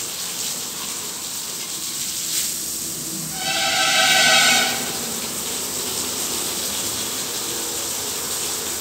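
Water spraying from a hose, a steady hiss. About three and a half seconds in, a steady pitched tone sounds over it for just over a second.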